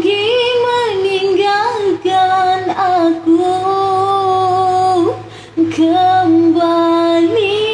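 A female voice singing solo and unaccompanied, with long held notes decorated by quick ornamented turns. There is a short breath pause about five seconds in.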